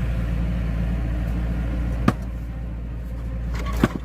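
An engine runs steadily while a knotted log is being split, with sharp cracking knocks from the wood about two seconds in and again near the end.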